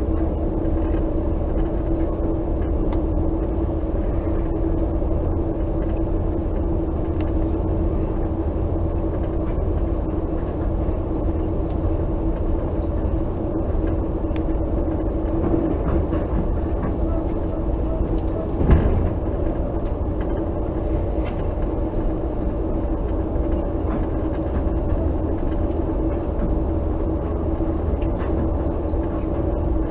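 Metra commuter train heard from inside a passenger car while running along the track: a steady low rumble with a constant hum, and one short sharp clunk a little past halfway.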